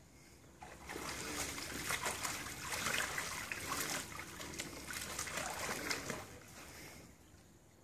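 Water splashing and sloshing in a small plastic paddle pool as a big Labrador–English Mastiff cross stands up, turns and lies back down in it. The splashing starts about a second in and dies away near the end.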